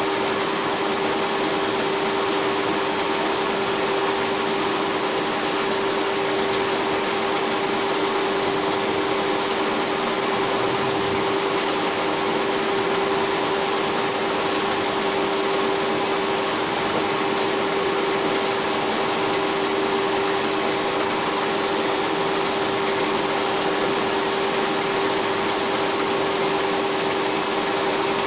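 A 1K62 screw-cutting lathe running steadily, a constant whine from its drive and gearing over an even mechanical hiss.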